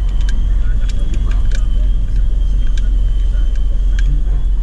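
Car driving slowly over a rough dirt road, heard from inside the cabin: a steady low rumble of engine and tyres, with scattered clicks and knocks as the car rattles over the bumps.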